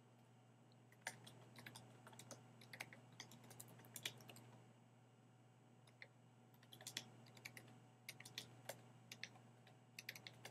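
Faint typing on a computer keyboard: irregular key clicks in two runs with a short pause between them, over a low steady hum.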